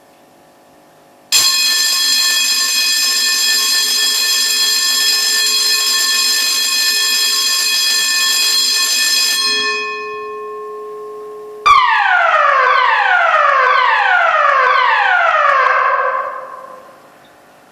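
Building fire alarm sounding through its loudspeakers between voice announcements. It plays a steady, sharp electronic alarm tone for about eight seconds, which starts abruptly and fades out. Then comes a quick run of about five falling tones, each sweeping from high to low and overlapping the next, which die away near the end.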